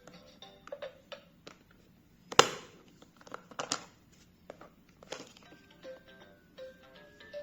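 VTech Latches & Doors Busy Board playing a simple electronic tune in its music mode, with plastic clicks and knocks as its doors, latches and buttons are worked. A sharp knock about two and a half seconds in is the loudest sound; the tune's notes come through more clearly in the second half.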